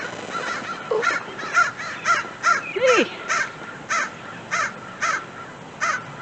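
American crows cawing repeatedly, about ten caws in quick succession starting about a second in.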